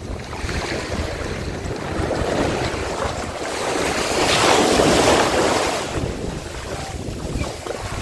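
Small waves breaking and washing up a sandy shore, swelling to a louder wash about halfway through, with wind rumbling on the microphone.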